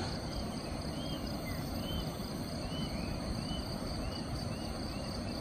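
Countryside ambience: a bird repeating a short, high, arched chirp about twice a second over a steady high insect drone and a low background rumble.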